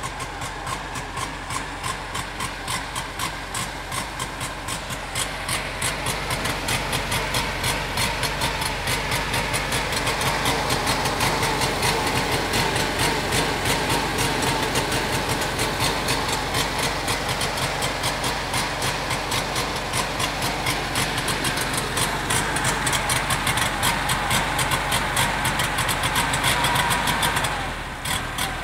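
Volkswagen Beetle's air-cooled flat-four engine idling with an even beat, running again for the first time after a year and a half laid up. It picks up speed a little over the first several seconds and drops back near the end.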